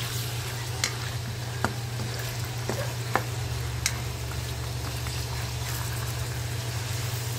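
Diced raw chicken sizzling in hot oil in a wok while a plastic spatula stirs it, knocking and scraping against the pan several times. A steady low hum runs underneath.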